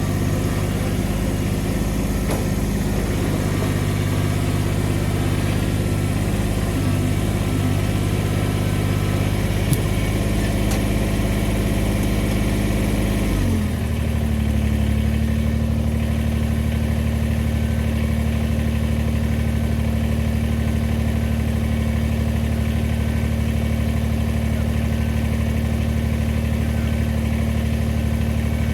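An engine idling steadily, with an abrupt slight change in its pitch about halfway through.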